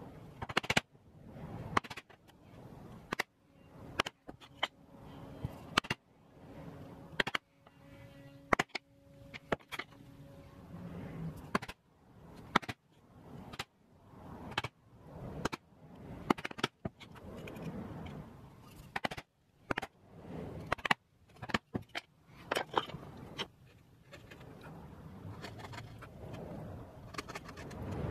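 Wood chisel cutting out dovetail waste in Iroko by hand: a run of sharp, irregular cracks and clicks as chips break off, with scraping between cuts.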